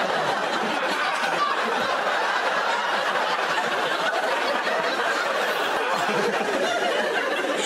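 Studio audience and panel laughing together, a long, steady wave of crowd laughter.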